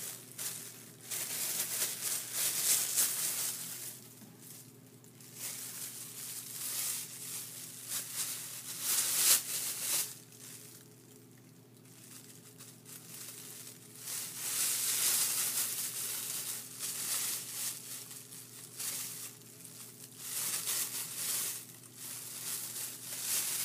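Thin plastic crinkling in irregular bursts with short pauses, as a plastic bag and then clear disposable plastic gloves are handled. A steady low hum runs underneath.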